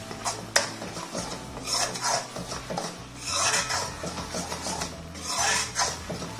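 Steel spoon stirring and scraping thick masala paste around a stainless steel kadai: a sharp clink of spoon on pan about half a second in, then repeated rasping strokes, three of them louder.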